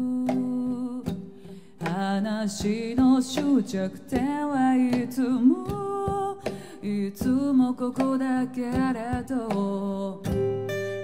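A woman singing a slow melody in phrases with short breaks, accompanied by her own strummed acoustic guitar in a live performance.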